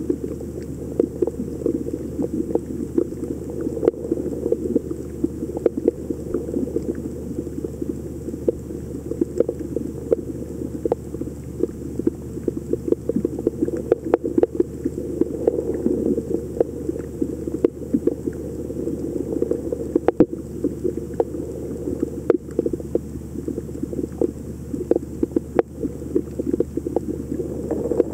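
Underwater ambience through a waterproof camera housing: a steady muffled rumble of water noise, with many scattered sharp clicks and crackles throughout.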